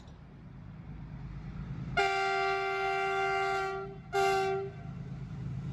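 Approaching Indian Railways diesel locomotive, its low rumble slowly growing, then its multi-tone horn sounding a long blast about two seconds in, followed by a short blast.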